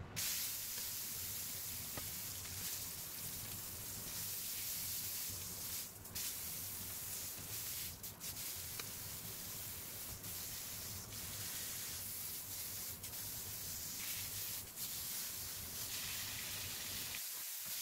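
Tomahawk beef steak sizzling steadily in a smoking-hot oiled grill pan as it sears on all sides, with a few brief dips in the sizzle.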